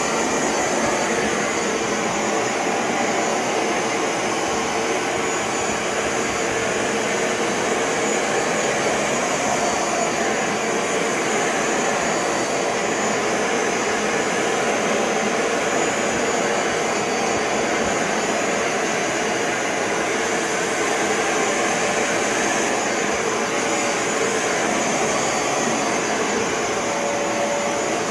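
Bissell ProHeat 2X Revolution Pet Pro upright carpet cleaner running steadily as it is pushed over carpet. Its motor gives a loud, even rush of air with a high whine on top.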